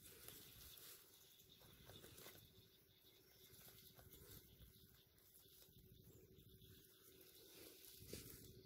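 Near silence: faint outdoor background with a faint steady hum and a few soft rustles.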